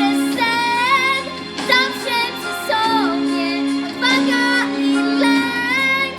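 A girl singing a slow, held-note ballad in Polish with vibrato over a recorded instrumental backing track, with short breaks between phrases.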